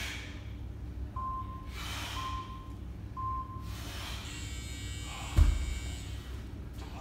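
A gym's digital interval timer gives three short beeps about a second apart, between hard breaths from a man working with a kettlebell. A little over five seconds in comes one heavy thud.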